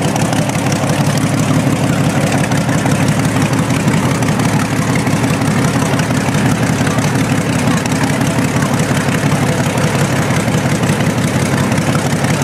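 Bentley-Packard special's Packard V12 aero engine running steadily through short open exhaust stubs that spit flame.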